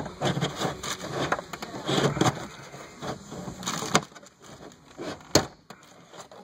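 Plastic upper dashboard panel being pried up: a run of crackles and snaps as its retaining clips let go, with one sharp snap about five seconds in.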